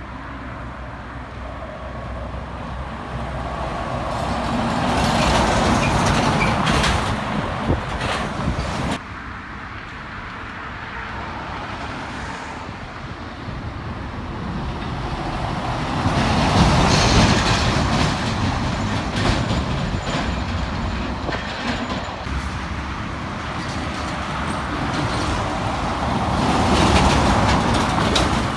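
Heavy trucks driving past on a highway one after another, engine and tyre noise swelling as each comes near and fading as it goes, three times over, with some rattling clatter on the first pass. The first pass breaks off abruptly.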